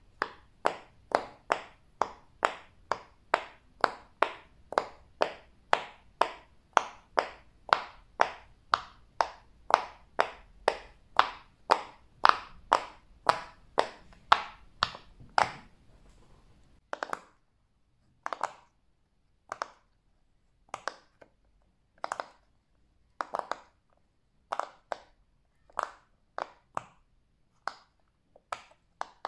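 Silicone pop-it fidget toy bubbles being pressed one after another, a steady run of crisp pops about two or three a second. After about sixteen seconds the pops come slower and more unevenly.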